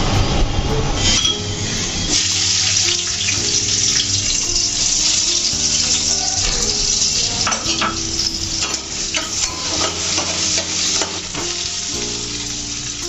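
Wai Wai instant noodles sizzling in a hot pan while being stirred. A utensil clicks and scrapes against the pan over the steady sizzle.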